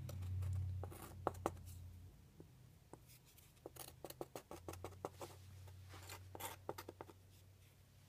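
Faint scattered taps and scrapes of a small stick working in wet white paint on a work surface, over a steady low hum.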